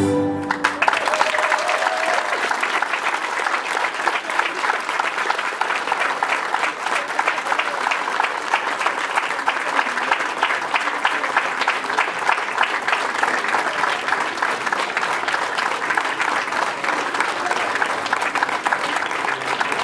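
A children's choir's final held chord cuts off about half a second in, followed by an audience applauding steadily.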